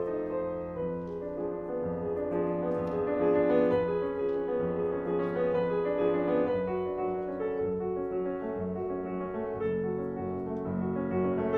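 Background solo piano music, held notes changing at an unhurried pace.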